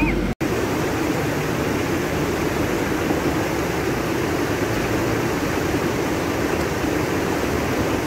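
Steady rush of a rocky mountain stream, cutting out for an instant near the start.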